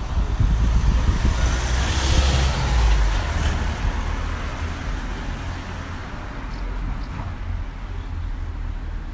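Street traffic: a vehicle passes close by, loudest about two to three seconds in and then fading, over a low road rumble.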